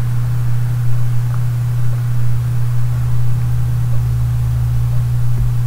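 Steady low hum with a faint hiss over it: the background noise of the recording setup.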